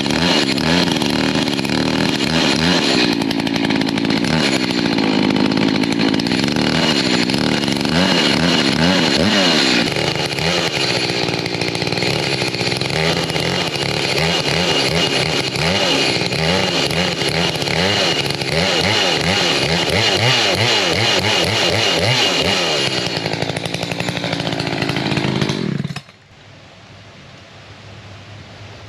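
Echo gas chainsaw running hard, its engine pitch sagging and rising as it cuts a shallow score line to guide a freehand milling cut. It cuts off suddenly near the end.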